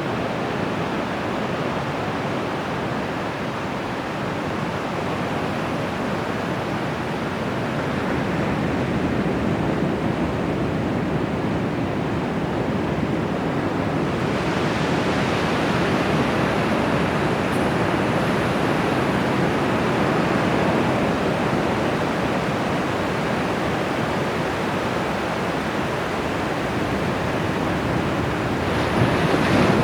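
Bay of Bengal surf: a steady rush of breaking waves that swells as a larger wave breaks about halfway through and again near the end.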